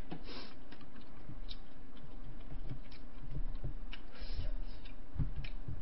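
Eating at the table: faint, irregular clicks and small knocks of chewing and of chopsticks against bowls, over a steady low hum.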